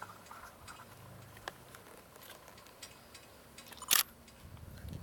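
Quiet background with scattered faint ticks and one sharp, loud click about four seconds in.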